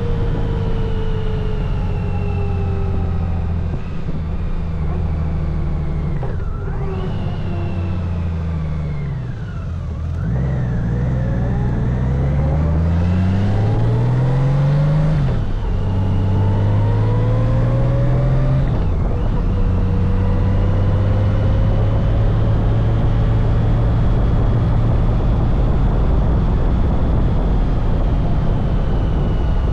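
Honda Gold Wing trike's engine running on the road: the engine note falls about nine seconds in, climbs with acceleration, drops at a gear change about fifteen seconds in, then holds steady at cruising speed.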